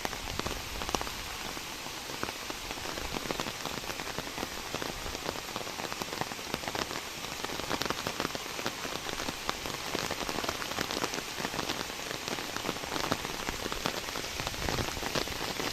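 Steady rain falling, an even hiss dotted with many small sharp drop hits.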